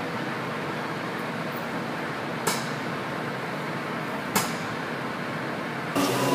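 Steady hiss of pneumatic bonding-paste dispensing equipment while paste is pushed through the applicator gun, with two sharp clicks about two seconds apart. Near the end it cuts abruptly to a louder hum with several steady tones.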